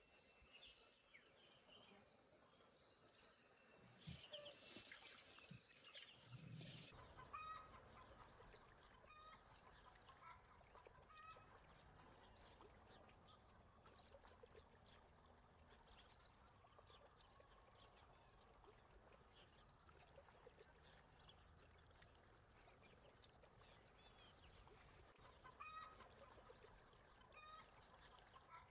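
Faint bird calls, short and repeated many times, over a low background hiss, with a louder noisy stretch about four to seven seconds in.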